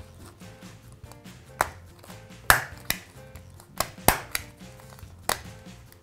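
Small handheld stapler being pressed through paper and card, giving a series of sharp clicks and snaps, two of them much louder than the rest, as staples are driven to fix a string. Soft background music underneath.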